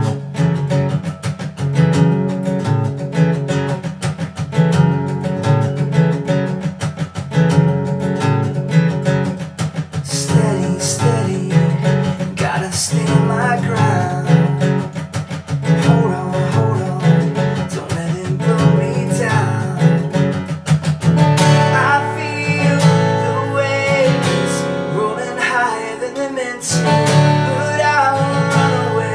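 Acoustic guitar strummed in a steady rhythm, with a man's voice singing over it in the later part.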